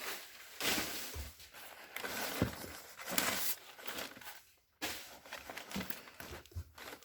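Packing paper being pulled out of a shipping box, crinkling and rustling in irregular stretches, with a few soft knocks.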